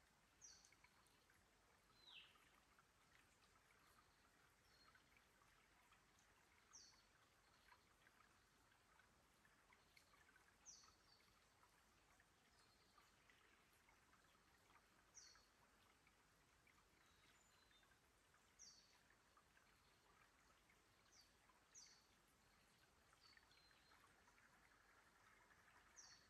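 Faint forest stream ambience: a thin trickle of water among creek rocks, with a small bird giving short, high chirps that fall in pitch, about ten of them spaced every few seconds.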